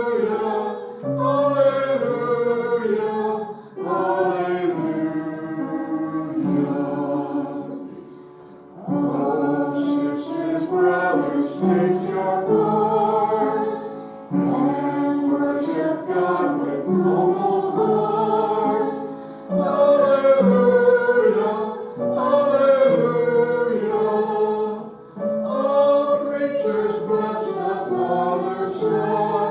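A congregation singing a hymn together, in sung phrases of a few seconds each with short pauses between them.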